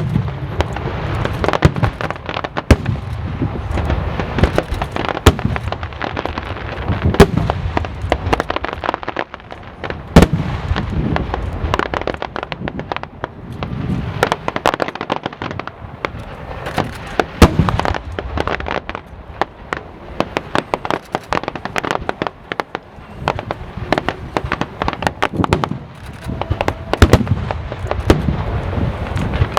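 Aerial fireworks display: a continuous barrage of shell bursts with deep booms and sharp bangs, mixed with dense crackling, the loudest bangs coming irregularly every second or so.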